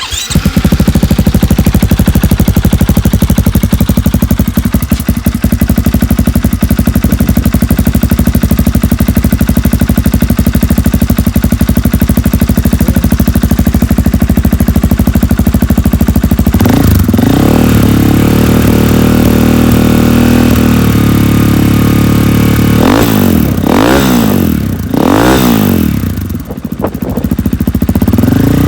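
KTM 500 XCF-W's single-cylinder four-stroke engine starting and idling through an FMF 4.1 RCT muffler with its quiet insert partly pushed in. After about sixteen seconds it is revved up and held for a few seconds, then given three quick blips of the throttle and dropped back toward idle, rising again near the end.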